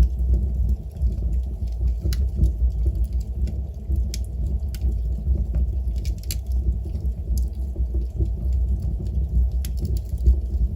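Wood fire burning in a fireplace: a steady low rumble of the flames with irregular sharp crackles and pops from the burning wood, several bunched together about six seconds in.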